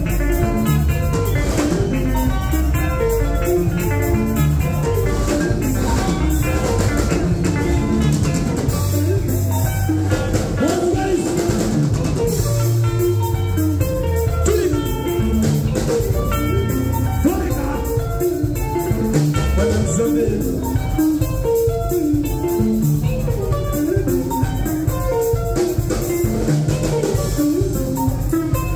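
Live sungura band playing: electric guitars picking fast runs of notes over bass guitar and a drum kit keeping a steady beat.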